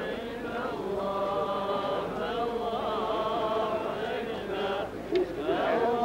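Large group of men chanting together in unison, a drawn-out Muslim religious chant with long held notes. The chant breaks off briefly about five seconds in, then picks up again.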